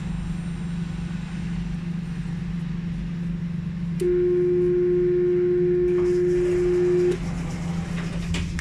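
Alstom Citadis 402 tram standing at a stop with a steady electrical hum; about four seconds in, a steady single-pitched beep sounds for about three seconds, the warning tone that the doors are about to close.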